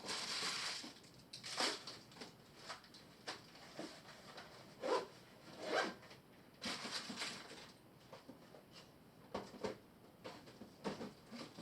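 Irregular short rustles, scrapes and clicks of something being handled, with a few louder scraping swishes about two, five, six and seven seconds in.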